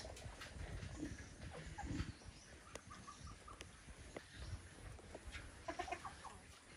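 A flock of domestic chickens clucking softly while foraging: a short run of clucks about two and a half seconds in and another cluster near the end, faint over a low background rumble.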